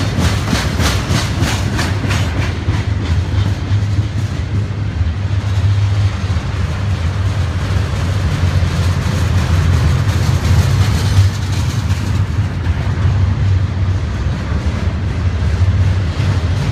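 Double-stack intermodal container train rolling past at close range: a steady low rumble from the well cars, with rhythmic clickety-clack of the wheels over rail joints, clearest in the first couple of seconds.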